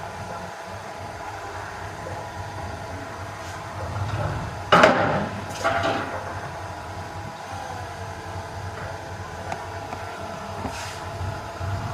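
Diesel engine of heavy earthmoving machinery running steadily, with a loud metallic clank about five seconds in, a second a moment later and a fainter one near the end.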